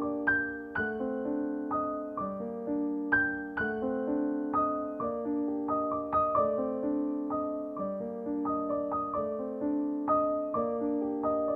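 Background piano music: a steady stream of struck notes, each fading after it is played, over lower held notes.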